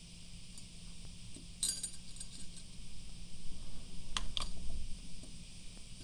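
Candy-coated chocolate buttons clicking against a ceramic plate and each other as they are picked up and set down: a short clatter a second and a half in, then two sharp clicks near the end.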